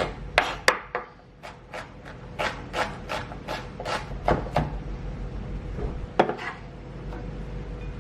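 Kitchen knife chopping a bell pepper on a cutting board: about a dozen quick knocks of the blade against the board in the first four and a half seconds, then a single knock about six seconds in.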